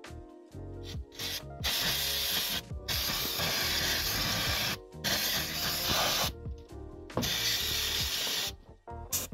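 Cleaner sprayed from an aerosol can in four long hissing bursts, each one to two seconds, while the water pump area of the engine is cleaned. Background music runs under it, heard mainly between the bursts.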